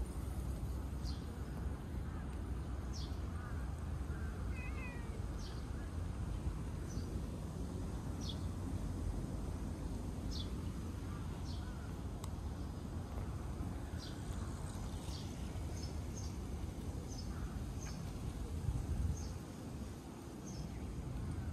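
A cat gives a short meow about four to five seconds in. Short high chirps, like a small bird's, come every second or so throughout, over a steady low rumble of wind on the microphone.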